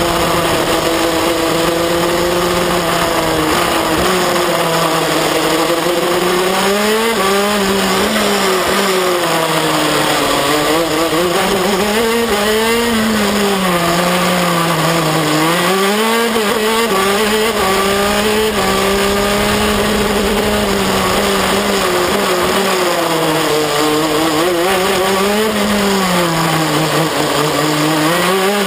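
A 125 cc two-stroke KZ2 shifter kart engine at racing speed, heard on board. Its pitch rises and falls again and again as the kart accelerates along the straights and slows into the corners.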